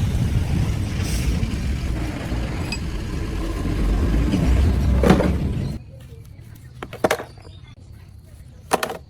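A machine runs with a steady low rumble, then cuts off abruptly about six seconds in, followed by a few light clicks and knocks.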